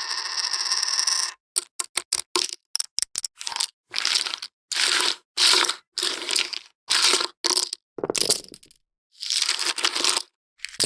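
Poker chips clattering: a steady rattle that stops about a second in, followed by a quick run of clicks and then a series of short clacking bursts, one after another.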